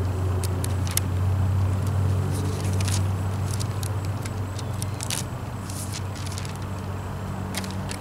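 Pages of a Bible being leafed through: scattered short, crisp paper rustles. Under them runs a steady low motor hum.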